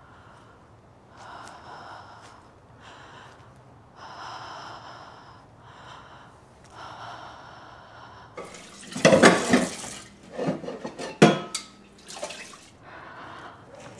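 A person breathing heavily, one slow breath about every second and a half. From about eight seconds in, water splashes in a kitchen sink and dishes clink and clatter as they are washed.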